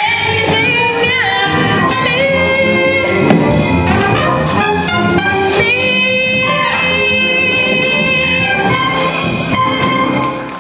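Musical theatre number: a woman singing over a brass-heavy band accompaniment, ending on a long held final note that fades out near the end.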